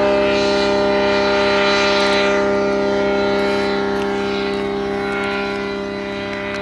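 Self-launching glider's engine and mast-mounted propeller droning as it climbs past, a steady hum of unchanging pitch that slowly fades over the second half.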